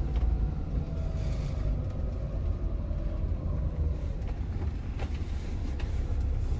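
Motorhome driving slowly: a steady, low rumble of engine and road noise, with a faint engine tone above it.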